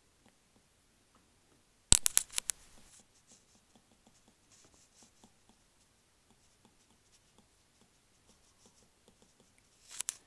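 Stylus writing on a tablet: faint scattered taps and scratches of the pen tip as words are handwritten, with a cluster of sharp, louder clicks about two seconds in and another short burst just before the end.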